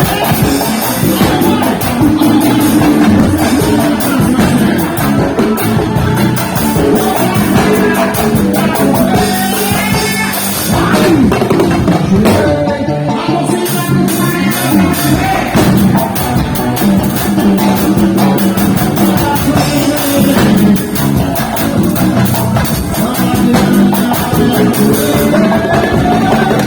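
Loud band music with singing, drums and guitar.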